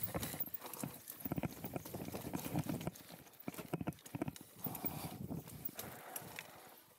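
Mountain bike clattering down a rocky trail: tyres knocking over stones and the bike rattling, an irregular run of sharp clacks.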